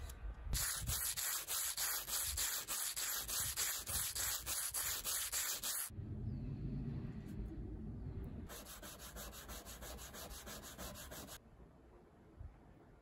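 Aluminium dog tag rubbed back and forth by hand on a strip of sandpaper, quick rasping strokes at about four or five a second. A long run of strokes, a pause of a couple of seconds, then a second, shorter run that stops suddenly.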